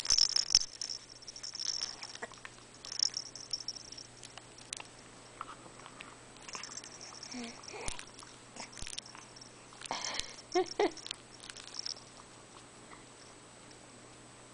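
Infant mouthing and chewing on a plush toy: soft wet mouth sounds, breathy sniffs and clicks in short bursts, with a brief little vocal sound about ten seconds in.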